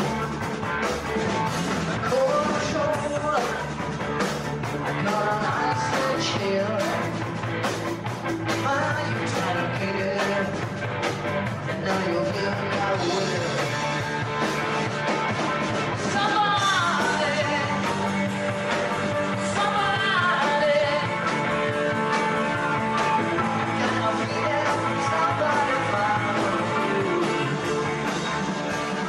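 Rock band playing live, with electric guitars and a drum kit behind a lead vocalist singing.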